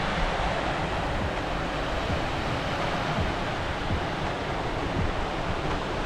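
Lake Michigan waves breaking and washing onto a sandy, rocky shore, a steady surf, with wind rumbling on the microphone.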